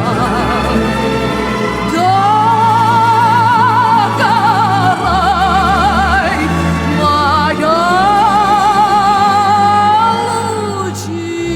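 Music: a woman's voice sings long held notes of a Russian folk song with a wide vibrato, sliding up into each phrase, over a low sustained accompaniment.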